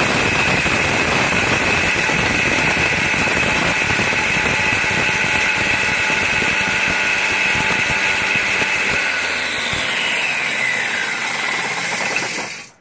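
Electric angle grinder spinning a blade inside a lidded stainless steel pot, grinding grain: a loud steady high whine over the rattle of grain against the blade and pot. The low rattle thins out in the last few seconds, and the motor is switched off and stops right at the end.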